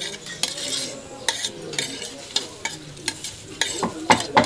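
A spoon stirring and scraping against a bowl as ingredients are mixed: irregular scrapes and clicks, coming quicker and sharper near the end.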